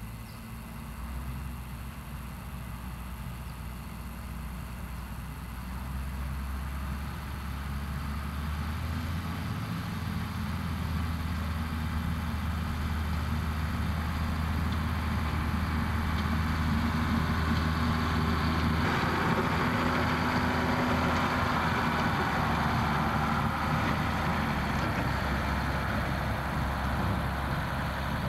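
Diesel engine of NB30, a small diesel-hydraulic shunting locomotive, running steadily and growing louder over the first half, with more rattling noise added from about two-thirds of the way in.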